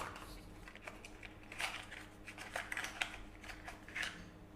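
Faint rustling and scratchy handling of packaging as a USB Type-C cable is taken out of the box, in a few short irregular bursts.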